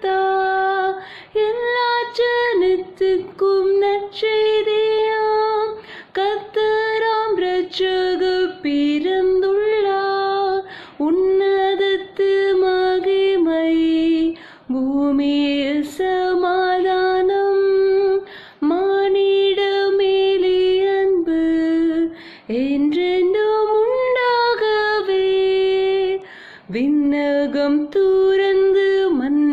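A woman singing a Tamil Christmas carol solo and unaccompanied. She sings in held phrases of a few seconds, with brief breaks for breath between them.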